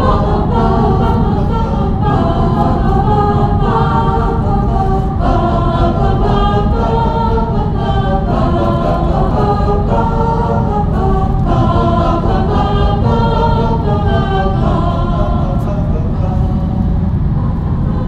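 Choral music: voices singing held chords that shift every second or so, over a steady low rumble.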